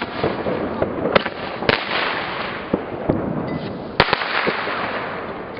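Fireworks going off: several sharp bangs, the loudest about four seconds in, over a steady crackling hiss.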